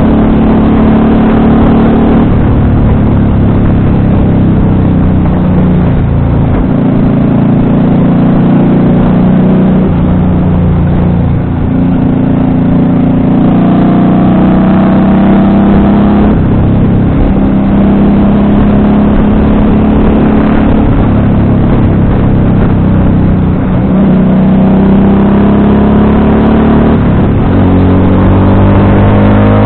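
FKM Victorino 250i V-twin motorcycle engine running under way, its pitch climbing and dropping several times with throttle and gear changes, then rising steadily near the end.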